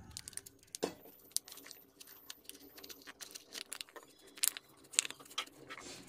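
Faint, scattered small clicks and crackles of a thin plastic sheet being worked along the glued edge of a Realme C35's back panel, prying it away from the adhesive.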